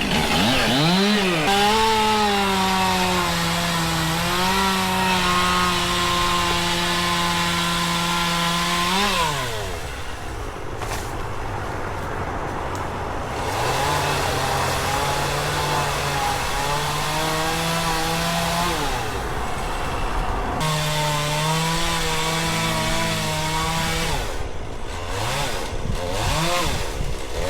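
Two-stroke chainsaw revved up and held at full throttle while cutting wood, its pitch sagging a little under load, then dropping back. This happens three times, followed by several quick revs near the end.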